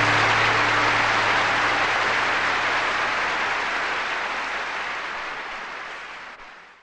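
Audience applauding after the music ends, the clapping fading steadily away and then cutting off. A low note from the final chord dies away under it at first.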